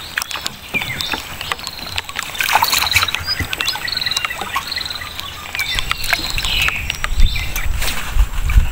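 Birds chirping repeatedly in short calls from the mangroves, with scattered sharp clicks and knocks around a small wooden boat. About two-thirds of the way in, a low rumble sets in and grows louder.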